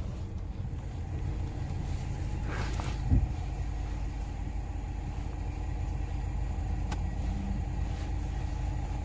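Car engine idling, a steady low rumble, with one short thump about three seconds in.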